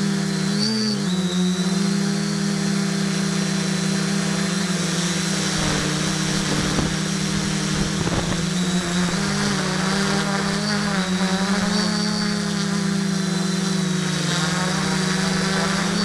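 A 650-class multirotor drone's electric motors and propellers, recorded from the drone's own camera: a steady buzzing hum with a thin high whine over it. The pitch dips briefly about a second in and wavers again around ten seconds as the throttle changes, and a rush of noise rises between about six and eight seconds.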